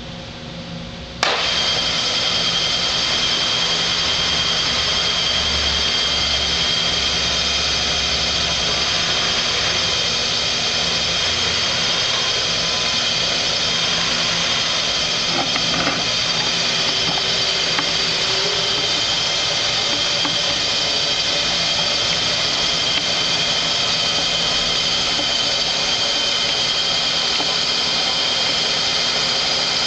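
Milltronics Partner CNC knee mill's spindle switched on about a second in, then running steadily with a high-pitched whine.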